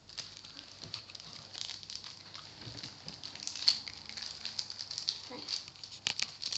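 Plastic wrapper of a trading-card pack crinkling and crackling in the hands as it is worked open, a dense run of small irregular crackles.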